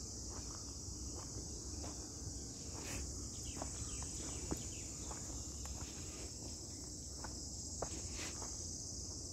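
Insects chirring in a steady, unbroken high-pitched drone, with a few faint footsteps and small clicks underneath.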